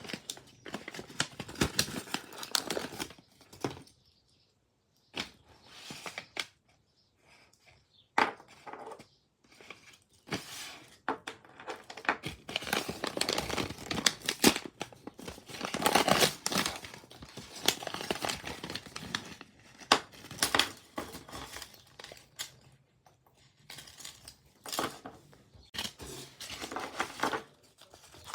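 Packaging being opened by hand: paper and plastic crinkling and tearing in irregular bursts, with short pauses between them.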